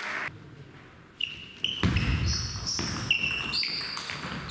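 Table tennis rally: the ball clicking off bats and table, with sports shoes squeaking on the hall floor. It starts after a quieter pause about a second in.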